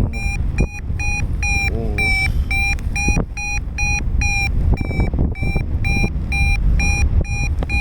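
Paragliding variometer giving its climb tone: short beeps of steady pitch repeating about two to three times a second, the sign that the glider is climbing in rising air. Wind rushes on the microphone beneath.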